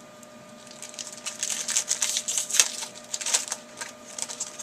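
Crinkling and rustling of a trading-card pack wrapper and cards being handled: a quick, irregular run of crackles starting about a second in, over a faint steady electrical hum.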